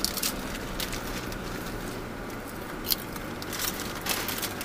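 Snacking on potato chips: chip packets crinkling and chips being crunched in scattered sharp crackles, over the steady low hum of the moving car's cabin.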